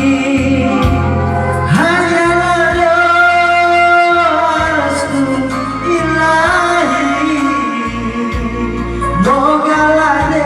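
Music with singing: a voice holds long, drawn-out notes, scooping up into new ones about two seconds in, midway and near the end, over a steady backing accompaniment.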